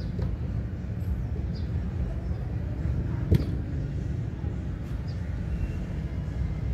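A football kicked once, a single sharp thud about three seconds in, over a steady low rumble.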